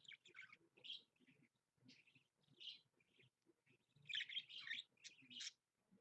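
Budgerigar chattering in short scratchy chirps and warbles, with a denser, louder run of chirps about four seconds in.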